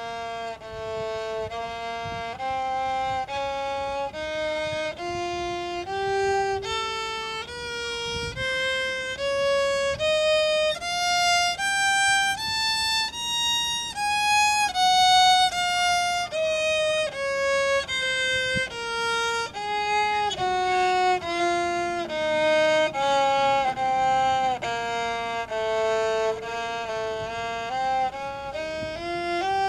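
Violin bowing a two-octave B-flat minor scale in first position, one note per bow stroke at about one note a second: it climbs to the top note about halfway through, comes back down, and starts upward again near the end.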